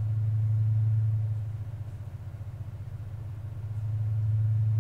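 A steady low hum that slowly swells louder and eases off, peaking about a second in and again near the end.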